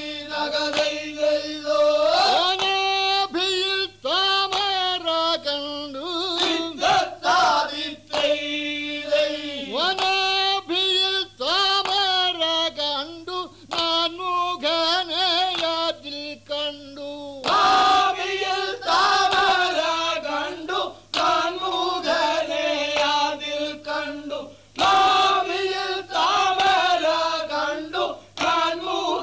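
A group of voices chanting a song in unison, in short phrases that often start with a rising slide, with brief breaks between lines.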